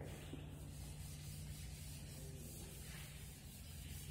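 Chalkboard duster rubbing in repeated strokes across a blackboard, wiping off chalk writing; faint, over a steady low hum.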